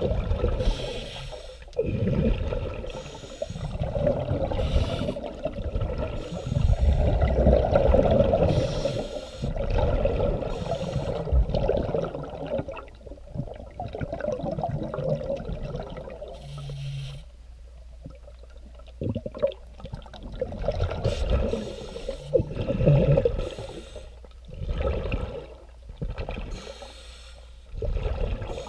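Scuba diver breathing through a regulator, heard underwater: irregular gushes of exhaled air bubbling out every second or two, with quieter gaps between breaths.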